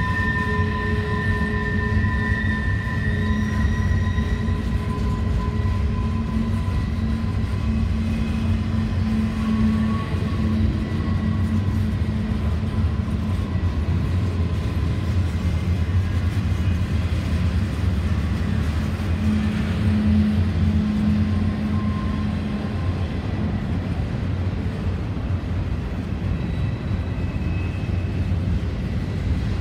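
Double-stack intermodal container cars rolling past at speed: a steady rumble of steel wheels on rail. For the first several seconds a thin high squeal from the wheels rides over the rumble, then fades out.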